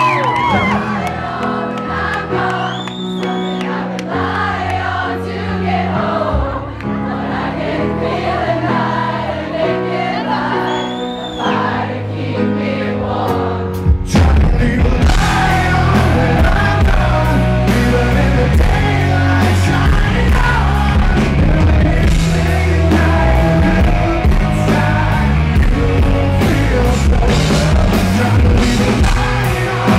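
Live rock band with a male lead singer and electric guitar. The first part is softer; about fourteen seconds in, the full band comes in hard and the music gets louder.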